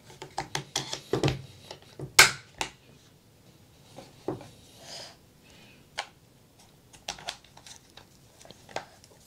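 Clicks and knocks of the Kriss Vector's takedown pins being pushed into the receiver and the gun being handled during reassembly, with one louder sharp knock about two seconds in.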